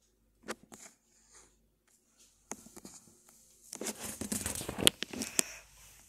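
Close handling noise: a few scattered clicks, then about two seconds of rustling and crackling with sharper clicks near the end, as a hand fumbles with the small fan's thin cord and fitting.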